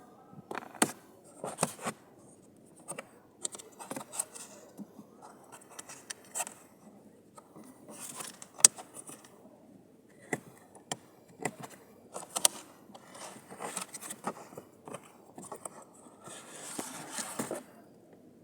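Hands working the cabin air filter and its plastic housing in a Chevrolet Cruze: irregular sharp clicks and knocks with scraping rustles, and a longer scrape near the end.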